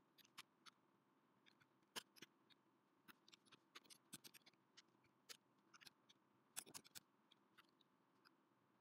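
Faint computer keyboard keystrokes: short, irregular clicks coming in quick runs with small gaps, over a low hiss.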